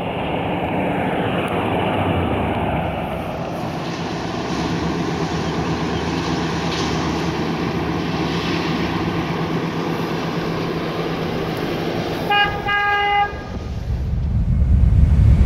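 1956 Ford Thunderbird's V8 running as the car drives slowly past, with tyre and road noise. About twelve seconds in, a car horn gives two short toots, and music comes in near the end.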